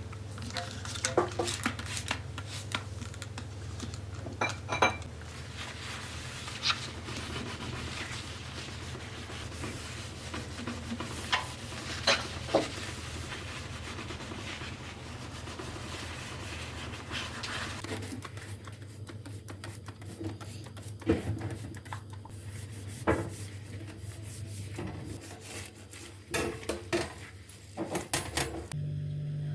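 Dishes and cutlery being handled, with scattered clinks and knocks of crockery and metal over a steady low hum.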